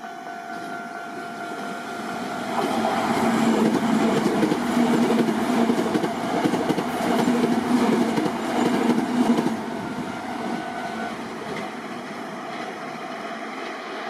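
Toei Subway 5300 series electric commuter train passing close by, its wheels clattering over the rails, loudest from about two and a half to nine and a half seconds in. Under it a level crossing's steady warning tone sounds and stops about eleven seconds in, then the train noise fades.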